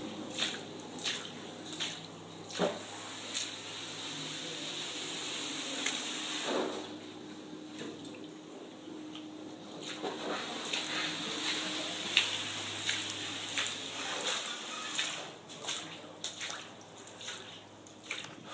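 Water running, with scattered drips and splashes over a steady hiss.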